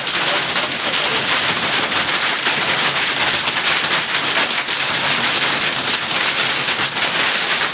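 Hail and heavy rain pelting a vehicle's roof and windshield, heard from inside the cab as a dense, unbroken clatter of sharp impacts over a loud hiss.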